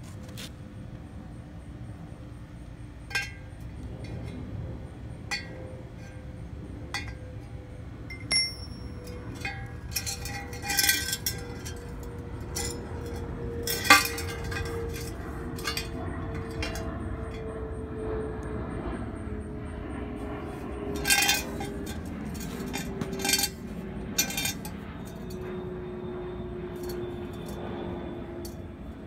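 Metal clinking and tapping as steel exhaust tube pieces and a steel bar are handled on concrete: about a dozen sharp clinks at irregular intervals, a few ringing briefly. Under them are a steady low background noise and a faint tone that slowly falls in pitch.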